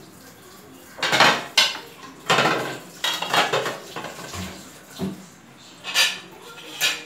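Kitchen utensils and dishes clinking and clattering, about half a dozen separate knocks and scrapes, as the milk, saffron and rose-water mix is added to the layered biryani.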